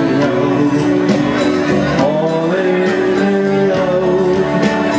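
Live band music: a singer over held instrument notes with a steady beat of about two strokes a second.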